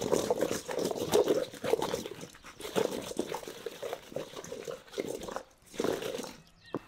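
Potato wedges being tossed with spices in a stainless steel mixing bowl: repeated tumbling and scraping of the wedges against the metal, in uneven shakes. The shaking stops shortly before the end, followed by one sharp click.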